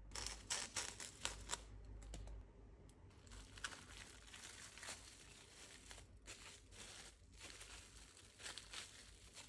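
Plastic cling wrap crinkling faintly as it is pulled and pressed around a cut cabbage quarter, in scattered small crackles that are busiest in the first couple of seconds.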